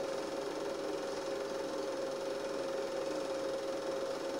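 Film projector running with a steady mechanical whir and a constant hum.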